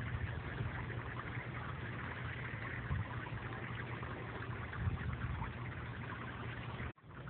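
Water jets of a sprinkler splash pad spraying and splashing down onto the mat: a steady hiss over a low rumble, cutting out suddenly near the end.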